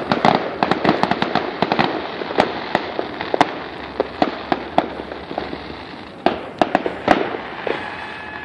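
Fireworks display going off: a dense run of crackling pops for the first two seconds, then scattered sharper reports that thin out after about seven seconds.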